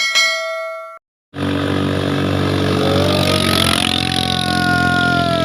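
A short ringing tone fades out in the first second, then after a brief silence a ketinting longtail boat engine is suddenly heard running steadily. Over the engine in the second half, a thin whistling tone slides up and then back down.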